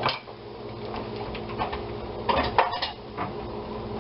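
Kitchen utensils clinking against dishes: a sharp clack at the start, then a handful of light clinks and taps, most of them bunched a little past the middle.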